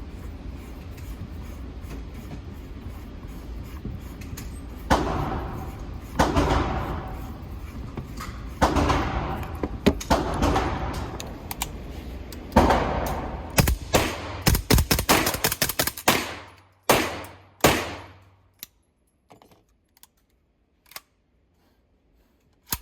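Kalashnikov USA KP9 9mm pistol fitted with an Omega 9K suppressor, firing. Single shots come a second or so apart, then a fast string of shots, then two more single shots, each with a ringing tail.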